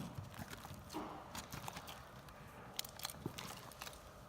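Faint sticky clicks and soft squishes of homemade slime with foam beads being worked by hand, scattered and irregular.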